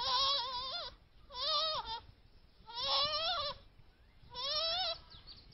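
A monkey calling: four wavering, bleat-like calls, each under a second, with short gaps between them.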